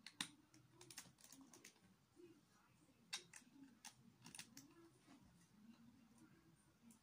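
Faint, scattered clicks and clacks of plastic Lego bricks being handled and pressed together, coming at irregular intervals.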